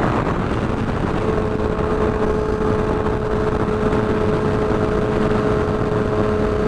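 Yamaha R6 sport bike's inline-four engine running at a steady cruise, its note holding an even pitch from about a second in, with wind rushing over the microphone.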